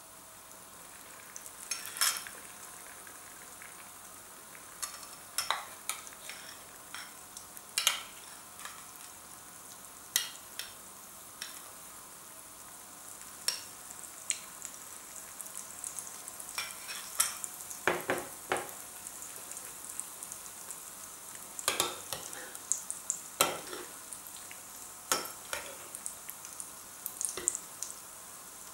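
Egg-dipped kefta frying in hot oil in a frying pan: a steady sizzle broken by frequent sharp pops and clicks.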